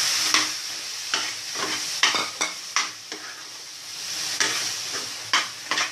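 Spiced brinjal frying in hot oil in the pot, the sizzle dying down after the wet coconut-cashew paste goes in, while a spoon stirs and scrapes against the pot with repeated sharp scrapes and knocks.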